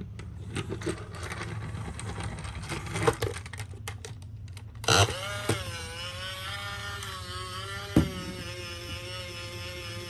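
Toy ambulances rolling and clattering over a slope, with a rumble of small wheels and sharp plastic knocks. About halfway through, a toy's electronic siren starts up: a held electronic tone that dips and wavers at first, then steadies.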